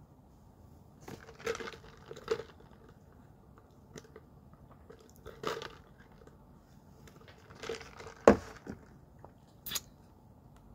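Scattered short rustling and crunching noises from handling an iced drink in a plastic cup close to the microphone and sipping it through a straw, with one sharp knock about eight seconds in.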